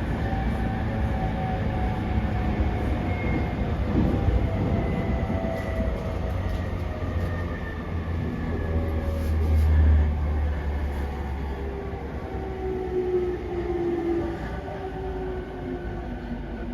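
JR East 209 series 500-subseries electric train heard from inside the car: steady wheel and rail rumble with a motor whine that falls slowly in pitch as the train slows for its stop.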